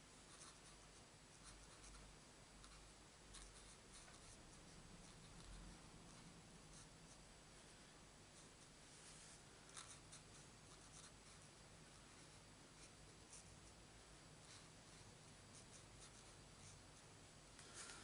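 Faint scratching of a Stampin' Blends alcohol-marker nib on cardstock: irregular short shading strokes over a quiet room hiss.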